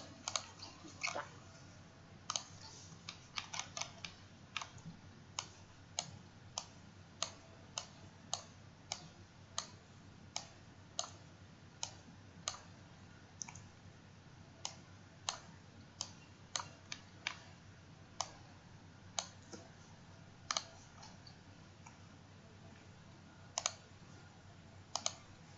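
Computer mouse clicking in sharp single clicks at an irregular pace, about one to two a second, with a short pause about three quarters of the way in, over a faint steady hum.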